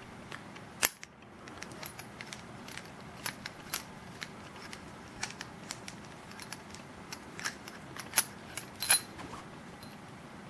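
Irregular small metallic clicks and taps as a flathead screwdriver works the machine screw inside a stainless steel e-cigarette tube, the firing button held, with a few sharper clicks about a second in and twice near the end.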